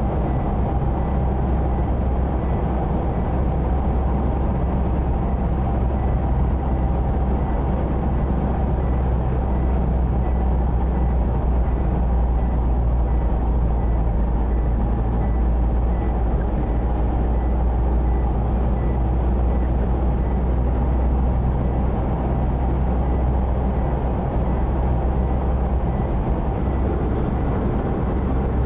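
Steady road and engine noise heard from inside a car's cabin while driving at speed, a constant low rumble with no change.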